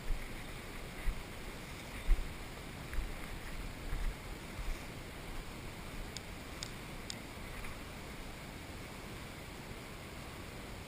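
Steady hiss with low bumps on the microphone about once a second for the first few seconds, then three faint sharp clicks in quick succession about two-thirds of the way in.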